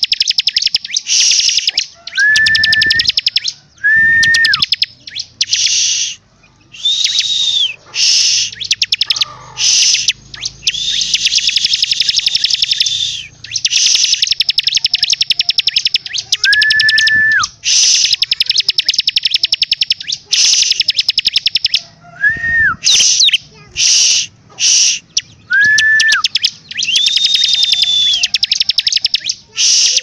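Bar-winged prinia (ciblek) singing loudly and almost without pause: long runs of very rapid, buzzy trills, broken every few seconds by short, clear, level whistled notes.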